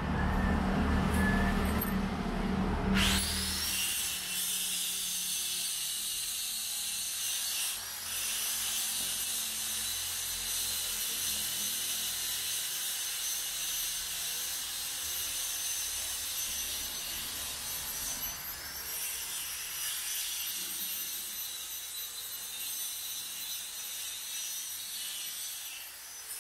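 A low rumble for the first three seconds. Then a power grinder starts abruptly and runs on metal as a steady, high-pitched whine over a grinding hiss, briefly dipping about eight seconds in and bending in pitch now and then.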